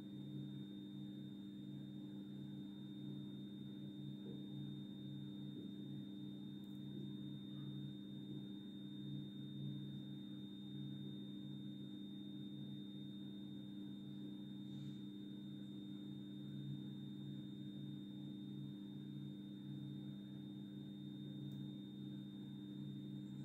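A steady low electrical-type hum with a thin high-pitched whine above it, unchanging throughout.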